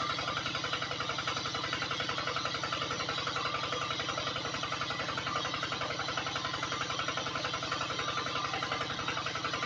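Small electric motor of a miniature belt-driven model water pump running steadily with a fast, even buzz, while its outlet pours a stream of muddy water splashing onto the mud.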